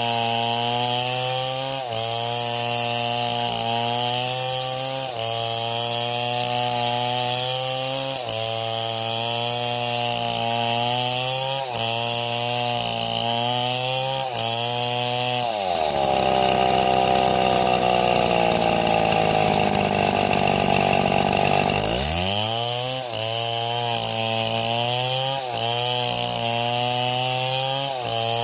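Two-stroke chainsaw running at high revs while cutting wood, its note wavering. Partway through, the pitch sinks for about six seconds and then climbs back, as the engine is loaded in a long cut.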